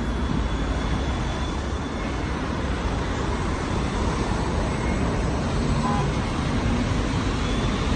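Steady road traffic noise from cars and vans passing on a city street.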